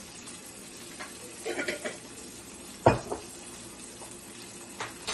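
Onions and ginger-garlic paste frying gently in a nonstick kadai with a low, steady sizzle. Light clinks of kitchen utensils come before one sharp knock about three seconds in.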